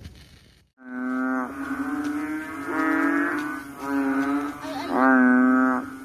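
Banded bullfrog (Kaloula pulchra) calling with its throat sac inflated. It gives a run of low calls, each held at one steady pitch for under a second, about one a second, starting about a second in, with the loudest call near the end.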